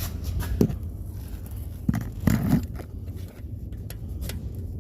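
Hand tools and metal parts knocking and scraping a few times, the loudest cluster about two seconds in, over a steady low hum.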